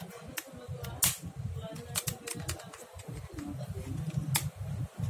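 Scattered sharp plastic clicks and taps from a MyPhone mobile phone's opened frame and battery being handled, the loudest about a second in and near the end, over a low rumble of handling.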